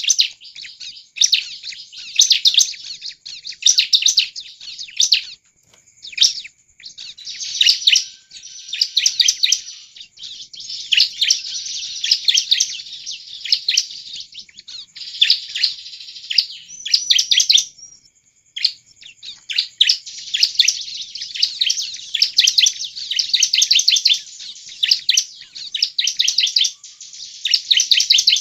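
Bar-winged prinia (ciblek) singing persistently: fast runs of sharp high notes in phrases of one to three seconds, broken by short pauses and repeated over and over. It is the kind of 'gacor' song played as a lure (pancingan) for wild ciblek.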